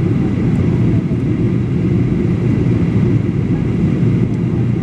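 Steady cabin noise of a Boeing 737-800 in flight, heard from inside the passenger cabin: the low, even roar of its CFM56 turbofan engines and the airflow over the fuselage, with a faint steady whine above it.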